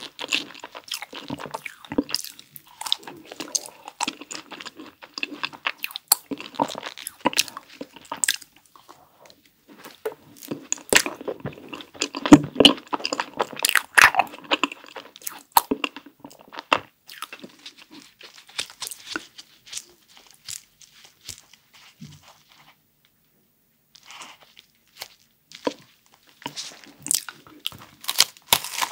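Close-up chewing and crunching of a cookie-crumb-coated ice cream bar, a rapid run of crisp crackles and wet mouth sounds. After a brief pause, a crunchy bite into a chocolate macaron ice cream sandwich near the end.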